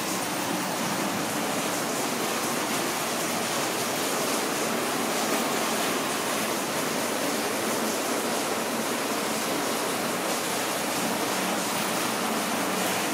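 Steady, even hiss at a constant level, with no distinct events.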